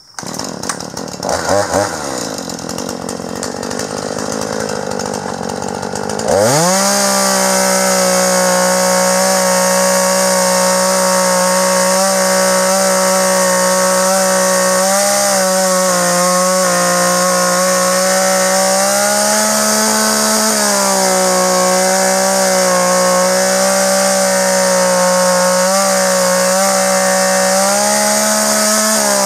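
Two-stroke chainsaw running at lower speed for about six seconds, then opened up to full throttle and held there while the chain rips lengthwise through a log, the engine's pitch dipping slightly now and then as the chain bites.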